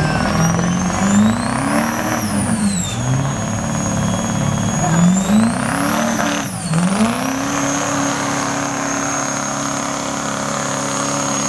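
Turbocharged Duramax V8 diesel pickup under full load in a truck pull. The engine speed surges up and down twice and then holds steady, with a loud high-pitched turbo whistle climbing and dipping along with it.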